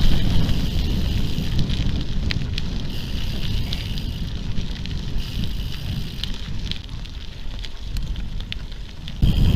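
Wind buffeting the microphone while riding, with a crackle of bike tyres on the rough track and scattered sharp clicks and rattles.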